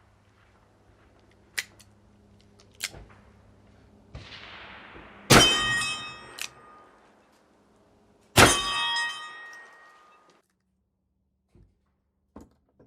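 Two shots from a Smith & Wesson Model 29 .44 Magnum revolver, about three seconds apart. Each is followed by a steel target plate ringing for about a second. A couple of small clicks come before the first shot.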